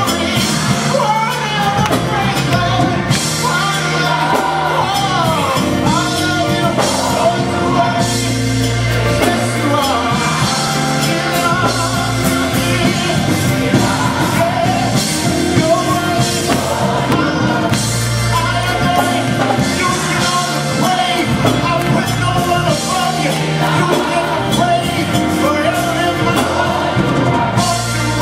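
Upbeat gospel song playing, a sung vocal over a full band.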